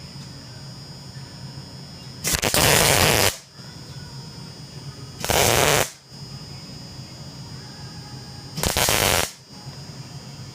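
MIG welder arc tack-welding steel with hard wire under 75/25 argon–CO2 shielding gas: three crackling bursts of about a second, half a second and three quarters of a second, the first the longest.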